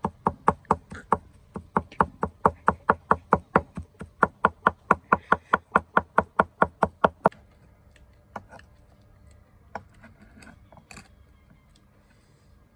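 A cleaver chopping rapidly on a wooden tree-trunk block, mincing a salted paste: a quick, even run of sharp knocks, about four to five a second. The chopping stops about seven seconds in, followed by a few light taps.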